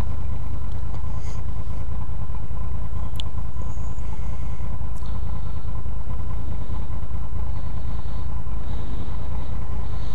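Honda VFR800's V4 engine idling steadily through its stock exhaust, heard from a microphone mounted right by the exhaust, just after starting.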